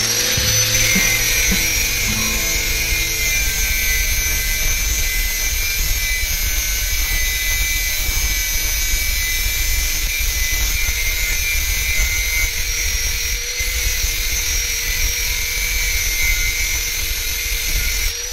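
Electric power tool motor winding up to a high, steady whine over a hiss of grinding noise and a low rumble, then winding down at the end.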